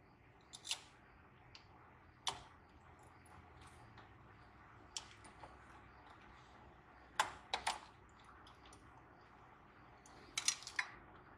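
Light metal clicks and clinks of parts and hand tools being handled on an engine's intake plenum. They come as a handful of short, sharp ticks in small clusters a few seconds apart, with a low hiss between.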